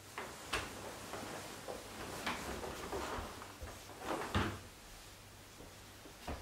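A series of soft knocks and rustling scrapes, like a door or cupboard being handled, with the loudest thud about four and a half seconds in and a sharp knock near the end.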